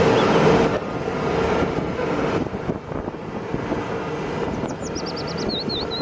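A Mack concrete mixer truck's diesel engine running as the truck moves slowly forward, an even roar with a steady hum, loudest at the start.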